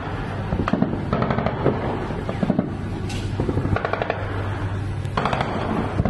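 Automatic machine-gun fire in several short rapid bursts, with tracer rounds streaking across the sea, over a steady low hum.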